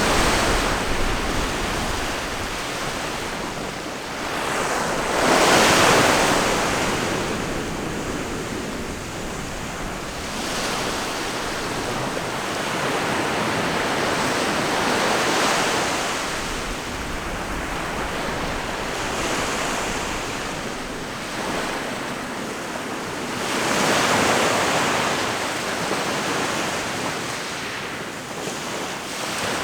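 Ocean waves breaking and washing up a shore: a steady rush of surf that swells and ebbs every four to five seconds, the biggest surges a few seconds in and again about three-quarters of the way through.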